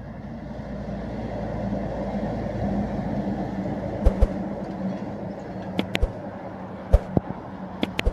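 Volkswagen triple-trailer log truck's engine drone, growing louder over the first few seconds and then easing off as it passes. Several sharp knocks or clicks come in the second half.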